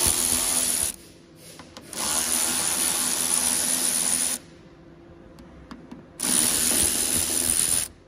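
Cordless ratchet running in three bursts, undoing the T40 Torx bolts that hold a van door lock: the first burst stops about a second in, the second runs for about two and a half seconds, and the third runs for nearly two seconds near the end.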